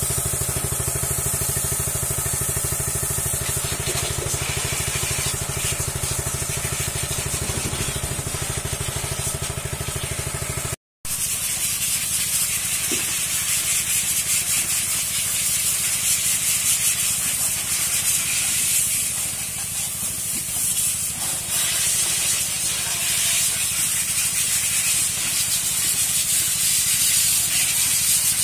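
A small single-cylinder petrol engine runs steadily, driving a belt-driven high-pressure spray pump. About eleven seconds in the sound cuts briefly, and then the steady hiss of the high-pressure water jets spraying plastic chicken feeders takes over, with the engine still running underneath.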